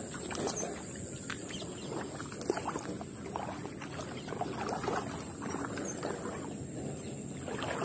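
Light clicks and rustles of hands handling a spinning reel, fishing line and a hollow-body frog lure, with one sharper click about two and a half seconds in, over a steady high-pitched whine.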